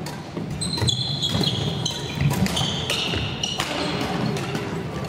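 Badminton rally on a hardwood gym floor: sharp racket hits on the shuttlecock and many short, high-pitched sneaker squeaks as the players move.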